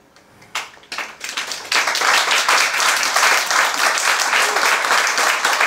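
Audience applause: a few scattered claps about half a second in, swelling into full, steady applause by about two seconds.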